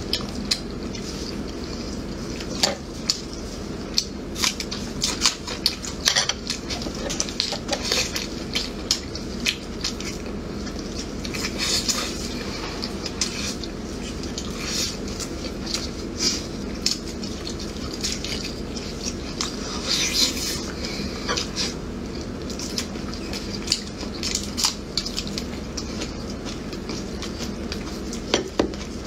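Close-up eating sounds of braised pig tails: irregular wet smacks, sucks and clicks of lips and mouths as the sticky, collagen-rich skin and meat are bitten and pulled off the bones.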